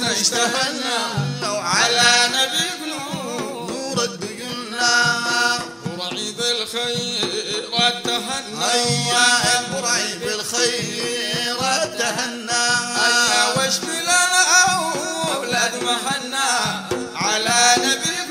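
Background music: singing of a Sudanese madeeh, a sung praise poem for the Prophet.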